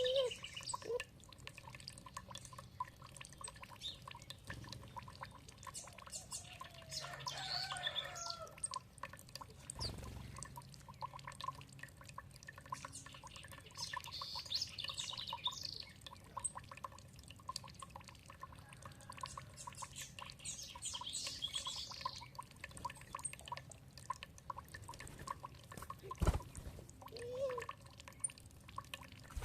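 Songbirds singing in short phrases every few seconds over steady dripping and trickling water, with one sharp low thud a little before the end.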